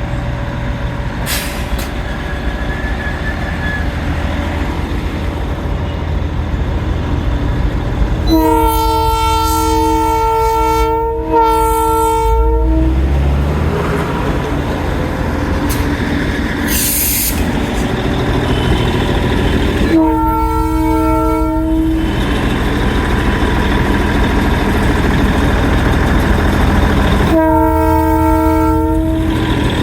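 Darjeeling Himalayan Railway toy-train locomotive sounding its horn four times: two long blasts with only a short break between them about eight seconds in, another about twenty seconds in and a last near the end, over a steady low engine rumble.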